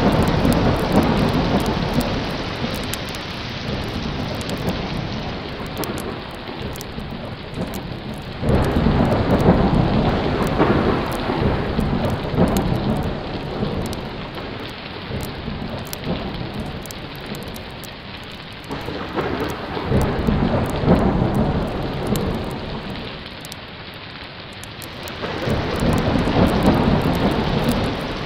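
Steady heavy rain with rolls of thunder that swell and fade several times, the biggest near the start, about a third of the way in and near the end. Many small sharp ticks run through it.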